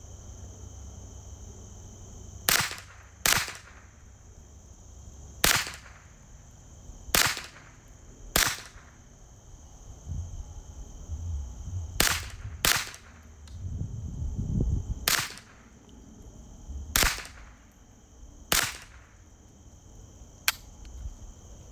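Ruger 10/22 semi-automatic .22 LR rifle fired about ten times at an unhurried, uneven pace. Each shot is a single sharp crack, spaced from about half a second to two and a half seconds apart, with a fainter crack near the end.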